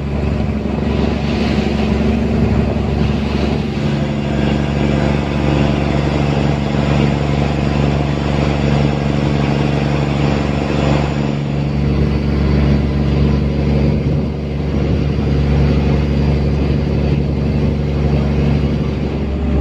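Purse-seine fishing boat's engine running steadily under way, a constant low drone over a steady rush of noise.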